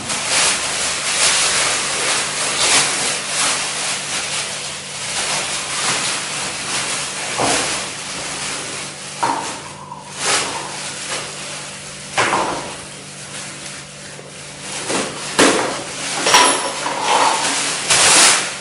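Clear plastic wrapping rustling and crinkling as it is pulled off office chair parts, in irregular bursts with a few sharper crackles.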